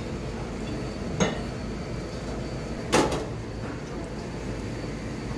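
Two short knocks of tableware, about a second in and a louder one about three seconds in, over a steady dining-room hum.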